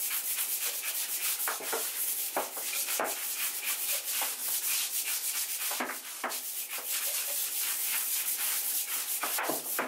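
Hand scrub brush with stiff bristles scrubbing shower floor tiles in quick, repeated back-and-forth strokes.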